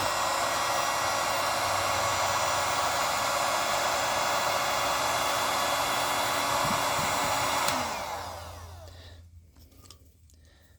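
Electric hot-air blower running steadily, heating the silicone jacket of a crimp connector to soften it. It is switched off about eight seconds in and winds down, its whine falling in pitch as it fades.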